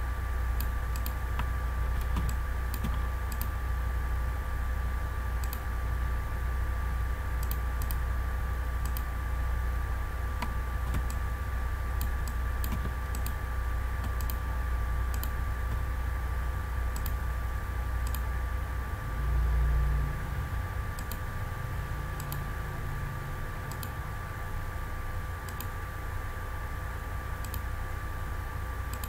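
Irregular light clicks of a computer mouse and keyboard, over a steady low hum that swells briefly about twenty seconds in.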